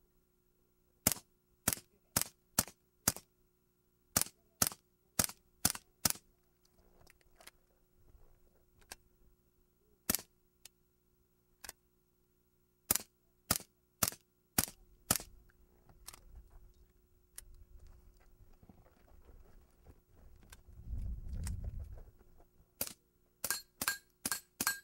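Strings of .22 rimfire gunshots, mostly about two shots a second in groups of five or six, with pauses between the strings and a single shot alone in the middle.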